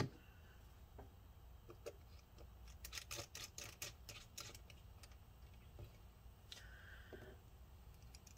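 Faint clicks and light taps of a small precision screwdriver and tiny screws being handled at a laptop's display hinge, with a soft knock at the very start and a quick run of sharper clicks about three to four and a half seconds in.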